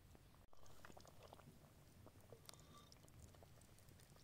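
Faint soft wet squelches and small clicks of a wooden spoon scooping thick ghormeh sabzi herb stew from a metal bowl and spooning it onto rice.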